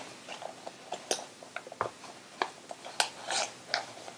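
Folded paper units of a modular origami cube rustling and crinkling, with many quick scrapes and clicks, as their wings are pushed into the pockets of neighbouring units.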